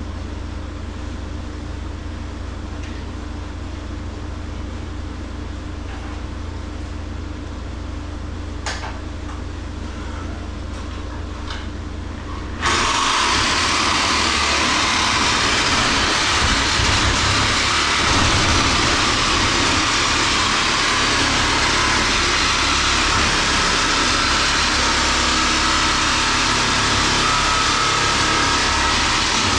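A steady low hum, then about 13 seconds in a loud, even grinding noise starts suddenly and holds steady: a power tool cutting through the cooler's steel meat rail.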